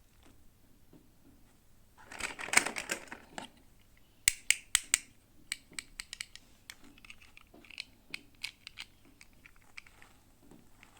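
Hands unboxing miniature toys: a short burst of crinkling packaging, then four sharp clicks in quick succession and a scattered run of lighter clicks and taps as the small plastic pieces are handled.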